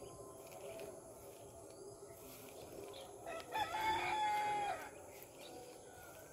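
A rooster crowing once, a single call of about a second and a half, held on one pitch and dropping away at the end.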